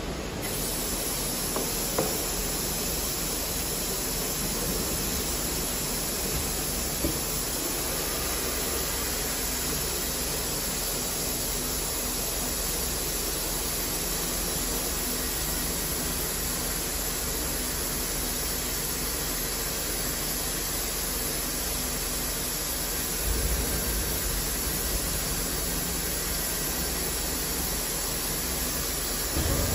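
Steady hissing noise of running factory machinery, with a couple of short knocks about two and seven seconds in and a brief low rumble about three-quarters of the way through.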